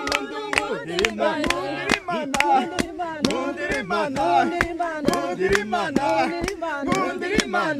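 A group of people singing a praise song together, with steady hand clapping at about four claps a second.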